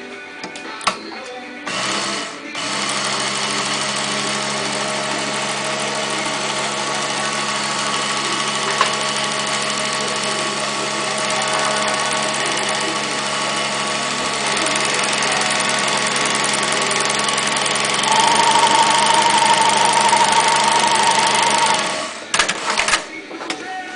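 Dürkopp Adler 4183i post-bed sewing machine with edge trimmer, stitching and trimming leather: a brief burst, then a steady run of about nineteen seconds that grows louder with a steady whine in its last few seconds and stops abruptly. A few sharp clicks follow.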